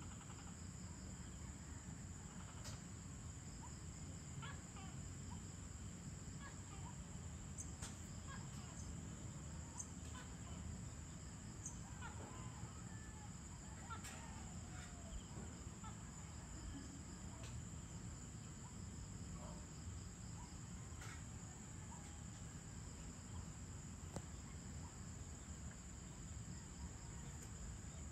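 Faint evening insect chorus, a steady high-pitched trill that never lets up, with scattered short bird chirps over a low background rumble.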